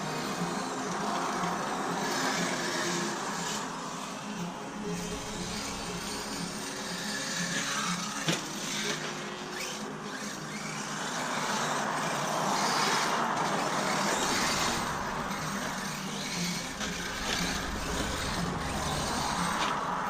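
Electric brushless RC car running on dirt: motor whine and wheel noise swell and fade as it drives near and away, with one sharp knock about eight seconds in.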